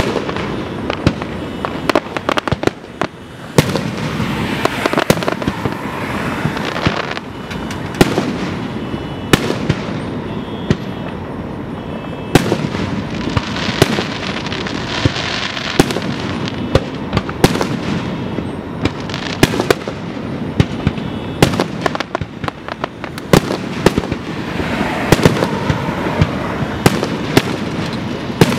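Aerial fireworks shells bursting in quick succession: dozens of sharp bangs, some close together, over a steady wash of noise.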